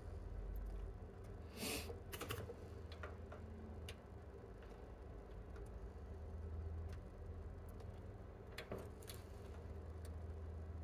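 Scattered light clicks and taps of hand tools working on a circuit board during desoldering, a small cluster about two seconds in and another near the end, over a faint low steady hum.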